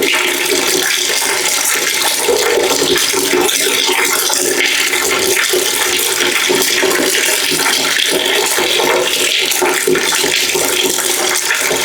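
Water running steadily into a bucket, a continuous splashing stream without pause.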